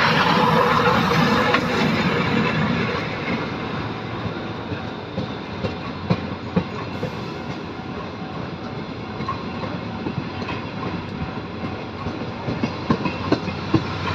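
Chichibu Railway's C58 steam locomotive passing close by, loudest in the first couple of seconds, then its passenger coaches rolling past with wheels clacking over rail joints. A quick run of sharper clacks comes near the end.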